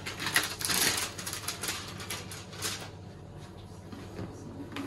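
Thin clear plastic film crinkling as it is crumpled up in the hands, a busy crackle for the first three seconds that then dies down to faint handling noise.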